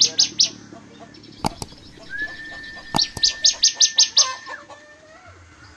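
Caged songbirds, a bar-winged prinia and a long-tailed shrike, singing: a few sharp high chirps at the start, then a long held whistle from about two seconds in, overlapped by a quick run of sharp chirps, about seven a second. Two sharp clicks stand out along the way.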